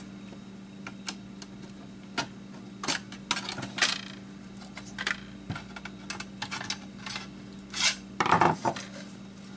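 Screwdriver prying the sheet-metal shield off a PlayStation 2 mainboard: irregular metallic clicks and scrapes, with a louder rattle about eight seconds in as the shield comes free.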